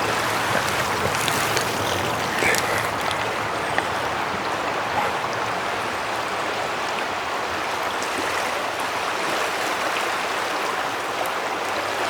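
The flooded Duck River running high and fast, its water rolling with a steady rushing noise.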